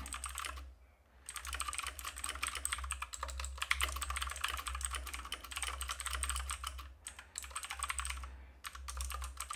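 Fast typing on a computer keyboard, a dense run of key clicks that breaks off briefly about a second in and twice more near the end.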